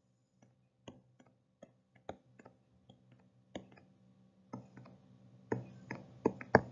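Quiet, irregular clicks and taps of a stylus on a writing tablet as a formula is hand-written, over a faint steady hum. The taps are sparse at first and come faster and louder over the last couple of seconds.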